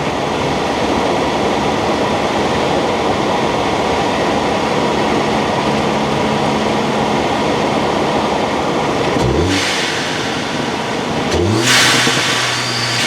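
Tuned Elantra N's turbocharged 2.0-litre four-cylinder running under steady load with heavy road and wind noise. About nine seconds in and again near the end, the revs climb sharply, each time with a burst of hiss.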